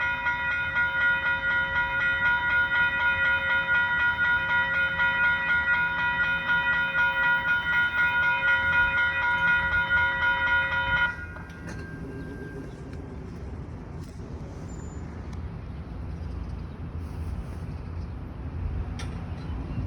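Railroad crossing warning bell ringing with a steady, pulsing, high-pitched tone, then stopping abruptly about eleven seconds in. A low rail rumble continues underneath.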